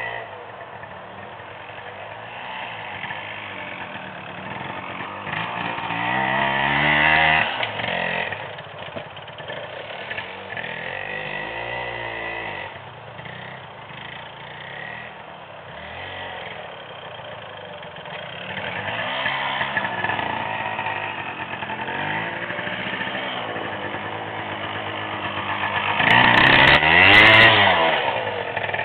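Small off-road motorcycle engine revving in repeated surges, the pitch rising and falling, with the loudest burst near the end as the bike climbs a steep dirt slope.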